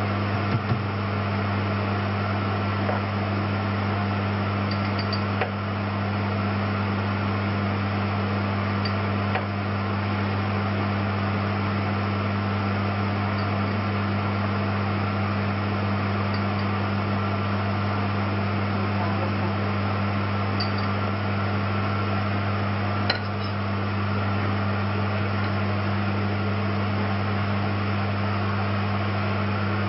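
A steady low hum with an even hiss over it, unchanging throughout, with a few faint clicks.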